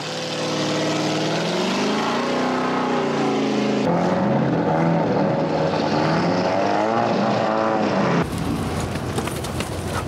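Land-speed racing vehicle engines in edited shots. The first engine note climbs in pitch and then drops, a cut just before four seconds in brings another engine whose note wavers up and down, and a cut near eight seconds in gives way to a rougher, noisier engine sound.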